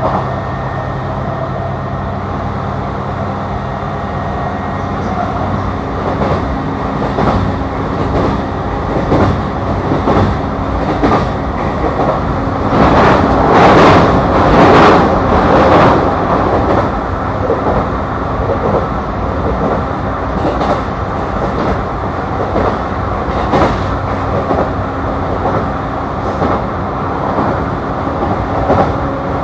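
Inside a JR E235-series electric train running at speed: steady wheel-on-rail rumble with a low motor hum and occasional clicks. The rumble swells louder for a few seconds about halfway through.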